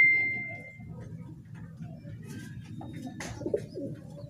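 A metallic ring fading out over the first second, then domestic racing pigeons cooing near the end.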